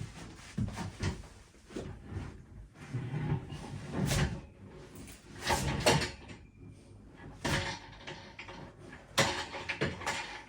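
Irregular knocks, clunks and scrapes of objects being handled and set down, a dozen or so separate strikes with short scraping stretches between them.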